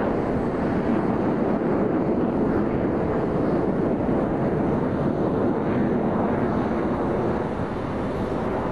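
Steady rushing jet noise from a formation of BAE Hawk trainer jets with turbofan engines passing overhead, easing slightly near the end.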